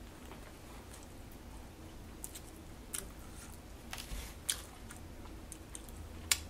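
A person chewing a mouthful of BBQ bacon burger with sparse, soft mouth clicks, the sharpest one near the end.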